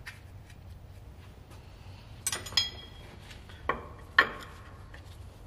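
Steel bolts, nuts and hand tools clinking, four sharp metallic clinks in the second half, one ringing briefly, as a semi-truck brake chamber's mounting hardware is being refitted.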